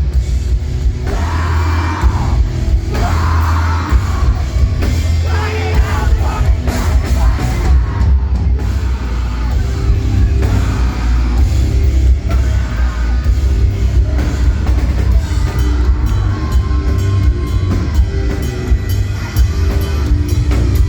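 Live rock band playing loud, distorted guitars, bass and pounding drums, with shouted and sung vocals at points, as heard from the crowd through a phone microphone.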